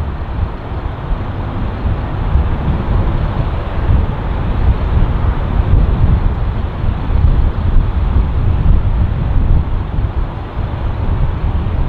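Wind buffeting the microphone with a steady low rumble, over a wash of jet aircraft noise.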